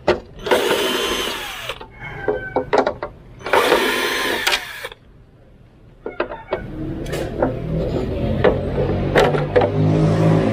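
Ingco 12V cordless drill/driver running twice in short bursts of about a second and a half, backing screws out of a plastic headlight housing, its motor whine dropping as it spins down each time. After that come several seconds of clicks and a lower, steadier noise.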